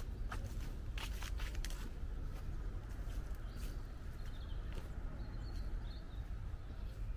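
Footsteps of a person walking, mostly in the first half, over a steady low rumble, with a small bird chirping faintly a few times midway.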